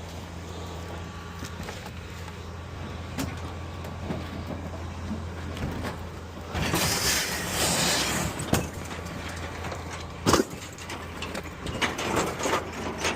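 A vehicle engine idling steadily under scrap metal being unloaded from a trailer: a long scraping rush about seven seconds in, a sharp metal clank a few seconds later, then scattered clattering near the end.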